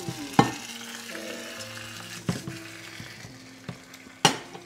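Focaccia dough sizzling gently in a hot frying pan just after being flipped and slid back in, with a few sharp clicks, the loudest near the end. Soft background music with held notes underneath.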